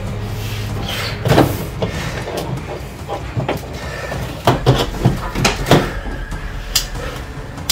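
Scattered clicks and light knocks of costume gauntlet pieces being handled and fastened onto a work glove on a folding table, busiest about two-thirds of the way through, over a steady low hum.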